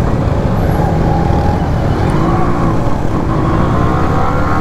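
A Yamaha RX135's single-cylinder two-stroke engine running under way, heard from the rider's seat. The engine note rises a little in the second half as it picks up revs.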